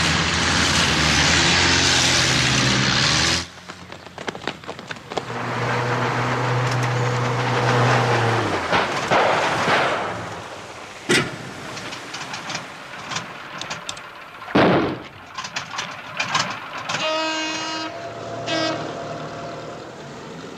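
Long-tail boat engines running hard as speedboats race past, loudest for the first few seconds and again from about five to eight seconds. Two sharp bangs follow, and a horn sounds twice near the end.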